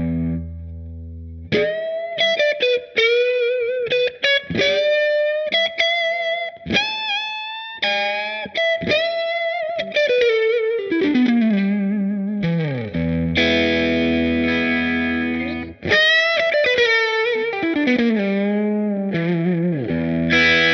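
Overdriven electric guitar through a Fender Blues Deluxe Reissue tube amp fitted with a Celestion Creamback speaker, driven by a Free The Tone SOV-2 overdrive pedal. A held chord opens a lead of quick single-note runs with vibrato, notes bending and sliding downward, and a second held chord from about 13 to 16 seconds in.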